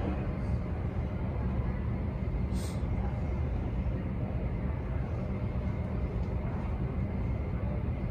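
Steady low rumble of airport ramp machinery around a parked airliner and its pushback tug, with a short high hiss about two and a half seconds in.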